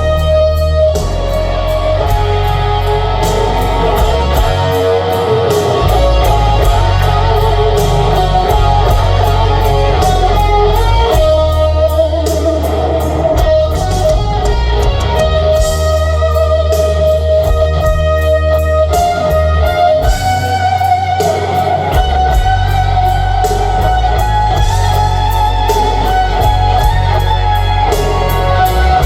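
Rock band playing live in an instrumental passage: an electric guitar holds long lead notes over bass guitar and drums with steady cymbal strokes.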